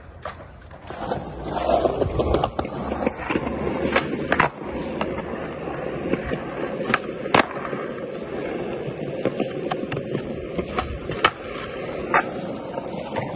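Skateboard wheels rolling on smooth concrete, starting about a second in, with repeated sharp clacks of the board popping and landing during flatground tricks.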